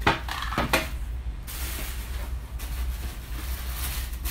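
Plastic packaging rustling and crinkling as a garment steamer's wrapped hose and parts are handled and unpacked, with two sharp knocks in the first second. A low steady hum runs underneath.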